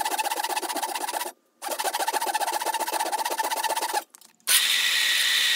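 Fine-toothed hand saw cutting a slot into the top of a wooden hammer handle in fast, even back-and-forth strokes, broken twice by short gaps. About four and a half seconds in it gives way to the steady running hum and high whine of a bench belt sander.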